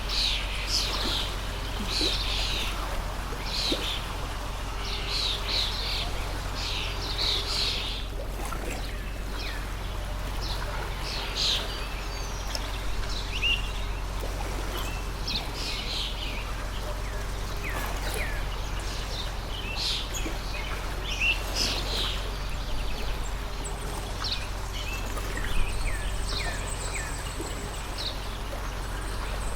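Small birds chirping in quick clusters over the steady rush of a water stream. The chirping is densest in the first several seconds and scattered after that.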